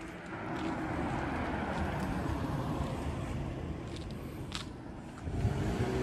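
Motor vehicle noise: a car's engine and tyres going by on the road, with a steadier, louder engine hum coming in about five seconds in.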